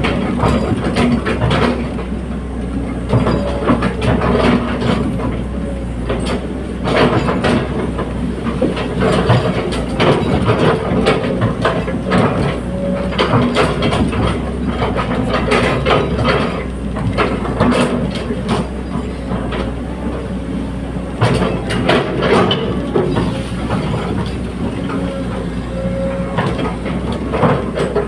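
Cat 320D hydraulic excavator's diesel engine running steadily while it digs, with frequent irregular metallic knocks and clanks from the bucket and arm working.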